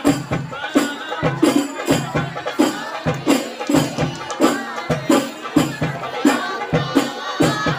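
Hadroh ensemble: frame drums beaten in a steady, quick rhythm, about two to three strikes a second, under a group singing an Islamic devotional song.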